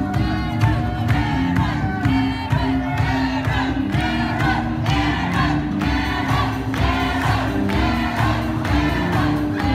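Music with a group of voices singing together over a steady bass line.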